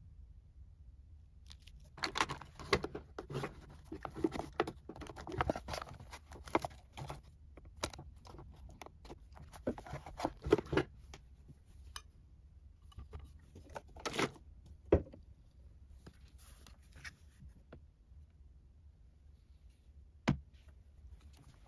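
Plastic clicking and clattering as pens and small items are handled in a clear acrylic two-tier drawer case. The clatter is busy for several seconds, then there are a few separate knocks.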